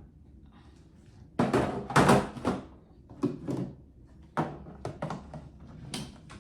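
Drawer organizer trays being set into a vanity drawer and shifted to fit: a cluster of scraping knocks about a second and a half in, then a string of separate sharp clicks and taps.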